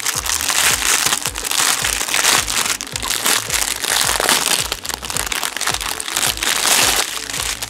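Clear plastic bag crinkling as hands pull it open and handle the strip of diamond-painting gem packets inside, a dense run of small crackles.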